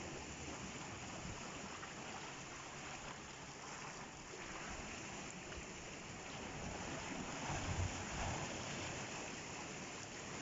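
Sea waves washing in with a steady rushing hiss, swelling into a stronger surge about eight seconds in.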